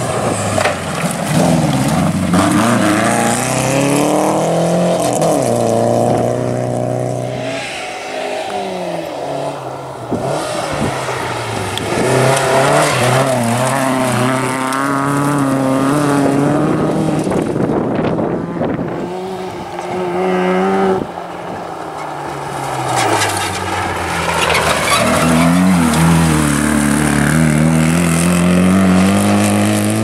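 Rally cars at full throttle on a loose gravel stage, one after another. The engines rev up and drop back repeatedly through the gear changes, over a steady hiss of tyres on gravel.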